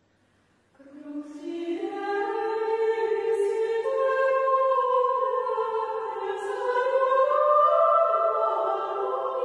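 Benedictine nuns singing Gregorian chant in unison: one melodic line of women's voices that starts about a second in and climbs step by step.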